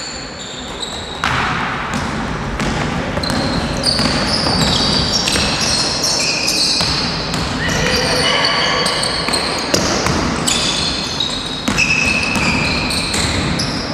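Basketball game sounds in a gym: sneakers squeaking on the court floor, the ball bouncing, and players calling out, echoing in the hall.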